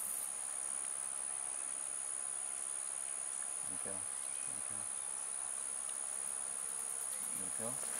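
Insects buzzing in one steady, high-pitched drone, with two brief faint low sounds about four and seven and a half seconds in.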